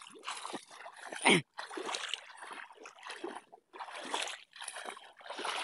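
Water splashing as a man wades and kicks through shallow pond water, in irregular bursts, with one sharper, louder splash about a second in.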